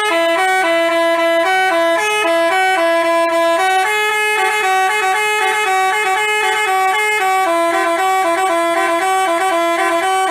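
Basuri telolet horn, the multi-tone musical horn of Indonesian buses, playing a tune of quick stepped notes that switch between a few pitches.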